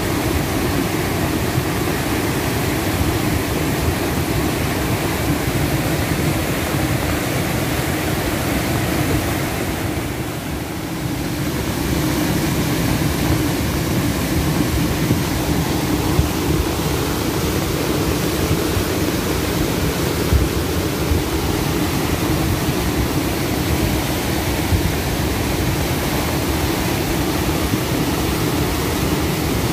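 A flooded river's water rushing in a steady, loud wash of noise, dipping briefly about ten seconds in.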